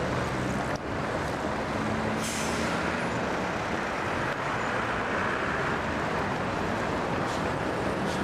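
City street traffic, with bus and car engines running steadily. A brief hiss of air, like an air brake, comes about two seconds in.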